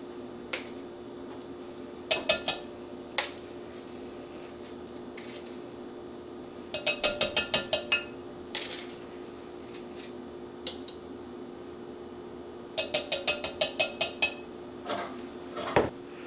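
A measuring spoon tapping against the rim of a glass Pyrex measuring jug to knock brown sugar out of it. There are a few single knocks, then two quick runs of about eight to ten taps each, several seconds apart.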